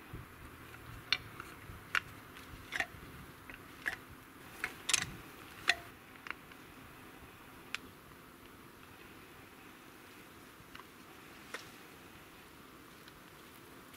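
Thin wooden scrap slats clicking and knocking together as they are handled and fitted into a small slatted frame: a quick run of light clacks in the first half, then only an occasional click.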